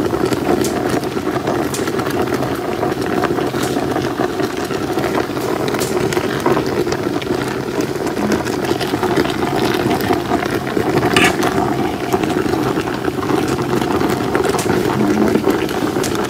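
Pieces of marinated pork cooking in a hot pot, a steady sizzling and bubbling with scattered small pops.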